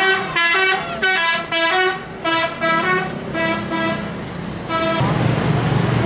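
A telolet musical horn on an intercity coach plays a quick melody of stepped notes, several a second, and stops about five seconds in.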